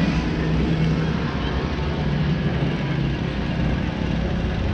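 A small motorbike engine running steadily at low speed, with wind rushing over the microphone.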